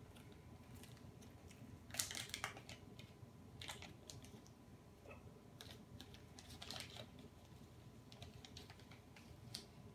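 Faint crinkling of a small plastic zip-top bag and light clicks of a plastic scoop as red cabbage powder is scooped out, in scattered short bursts.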